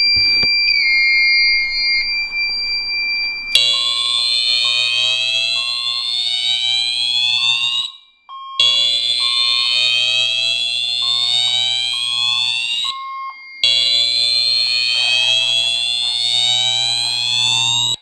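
Voice-evacuation fire alarm system sounding in alarm after a photoelectric smoke detector was tripped with canned smoke. A steady high tone gives way about three and a half seconds in to a slow whoop: three rising sweeps of about four and a half seconds each, with short breaks between them and short beeps underneath.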